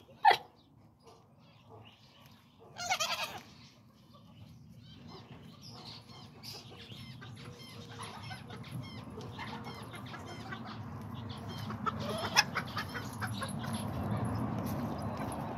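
Chickens clucking and chirping in a farmyard, with a sharp knock just after the start and a short, louder wavering animal call about three seconds in.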